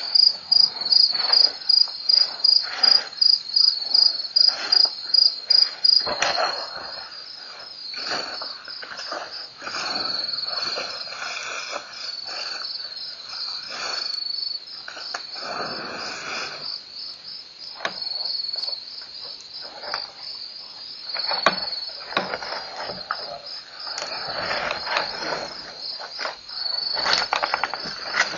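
Crickets chirping in a steady high-pitched pulse, about two chirps a second, loudest for the first six seconds. From about six seconds in, irregular rustling and crunching noises come and go over the chirping.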